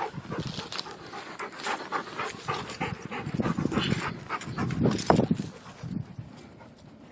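Golden retrievers panting hard at play, with scattered scuffles and knocks.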